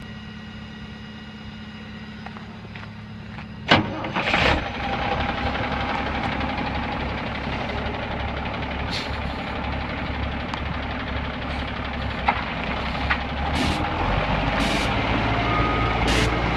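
Mack MS300P truck's Renault six-cylinder turbo diesel being started: a steady hum, a sharp clunk about four seconds in, then the engine catches and runs on at idle, with a few sharp clicks over it.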